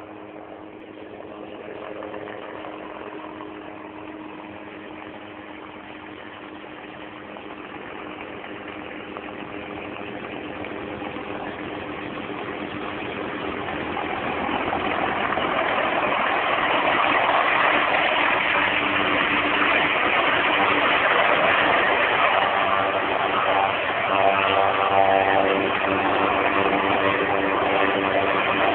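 Helicopter approaching low overhead, its engine and rotor noise growing steadily louder until about halfway through, then holding loud and steady.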